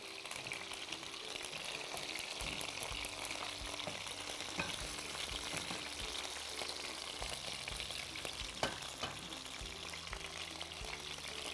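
Chicken pieces frying in hot oil in a pan, a steady sizzle with dense fine crackling.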